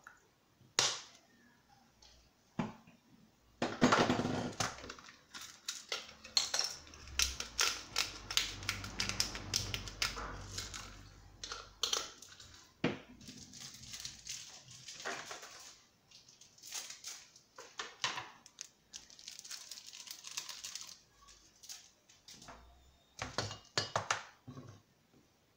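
Clicks and knocks of seasoning bottles and spice jars being opened, capped and set down on a counter beside a pan, with a few brief rustling hisses as seasoning is shaken in.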